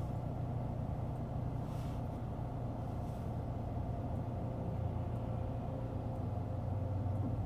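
Steady low rumble of a vehicle engine running, with constant low hum tones and a faint hiss of passing road traffic about two and three seconds in.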